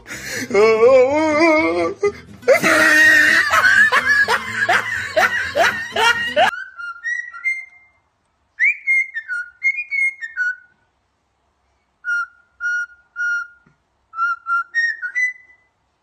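A loud, wavering, high voice-like sound with strong vibrato, which stops abruptly about six and a half seconds in. It is followed by a whistled tune of short, clear notes, a few repeated on one pitch and then stepping up, with silent pauses between phrases.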